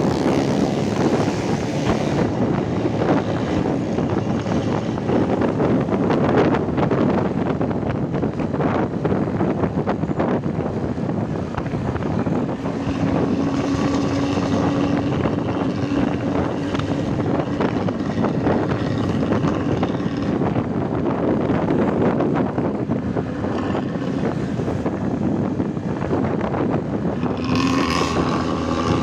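Intercity bus's diesel engine running with a loud, growling "ngorok" exhaust, a dense fast rattle of exhaust pulses. A steady pitched tone comes in near the end.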